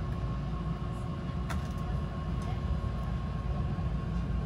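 Interior noise of a Keihan 8000 series train carriage: a steady low rumble with a faint constant whine above it and a few light clicks.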